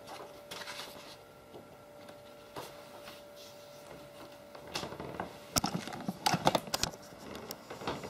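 Sheets of A4 office paper being handled and set down, with soft rustles and taps over a faint steady hum. Nearly five seconds in, louder knocks and rubbing start as the camera itself is picked up and moved.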